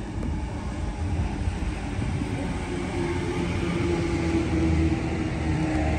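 A Sydney Trains Waratah electric passenger train running along the platform past the listener. A steady rumble grows slowly louder, and a steady tone from its running gear joins about halfway in.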